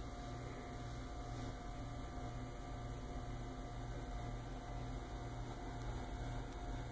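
Steady low electrical hum with a faint thin tone above it and a background hiss, unchanging throughout.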